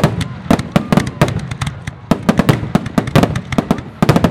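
Aerial fireworks shells bursting in a dense finale barrage: sharp, loud bangs and reports in quick, uneven succession, several a second.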